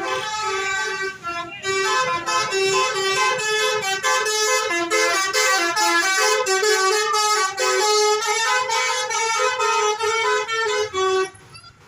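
Basuri telolet bus horn, a multi-tone air horn, playing a loud, rapid melody of changing notes that cuts off sharply near the end.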